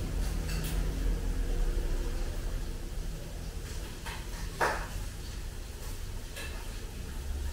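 Light kitchen handling at a counter: a few small clicks and knocks and a brief scrape about four and a half seconds in, over a low steady hum.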